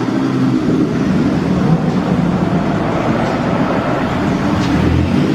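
Car engine running steadily at low revs, a loud, even exhaust drone with no revving.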